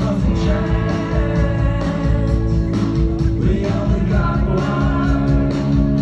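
Rock band playing live through an outdoor PA during a sound check: guitar and band with a singer's voice.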